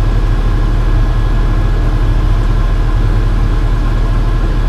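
Tractor engine running steadily at idle, with a faint steady whine above it.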